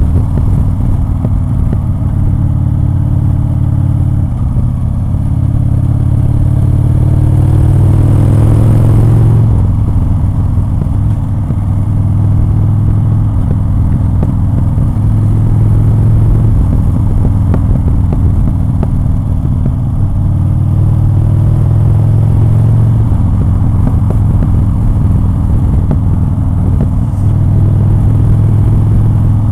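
Motorcycle engine running at road speed, heard from the rider's seat. Its pitch climbs steadily under throttle for several seconds, drops off about a third of the way through, and builds again later.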